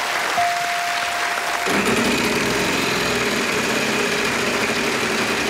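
Studio audience applauding. A little under two seconds in, a steady rapid mechanical clatter takes over: the Wheel of Fortune wheel's pegs clicking past the pointer as it spins.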